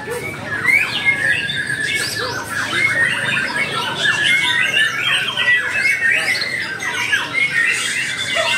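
Many caged competition songbirds singing at once in a bird-song contest: a dense, unbroken chorus of overlapping chirps, whistles and squawks.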